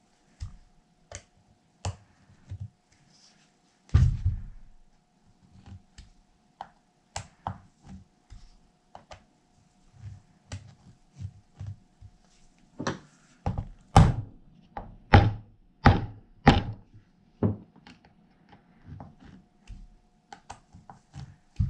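Hand work on an RC car wheel and its bead-lock ring: scattered clicks and knocks as tools and parts are handled while the bolts are checked for tightness. There is a heavy thunk about four seconds in, and a run of about six louder knocks a little over halfway through.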